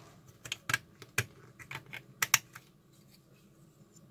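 Several sharp plastic clicks and taps as a circuit board is pressed into the jaws of a 3D-printed PLA board holder and the holder is handled.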